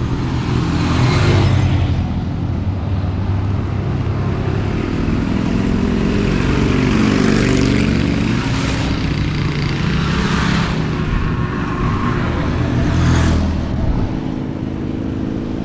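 Road traffic: motor vehicles passing close by one after another, engines rising and falling with tyre hiss, in about four swells.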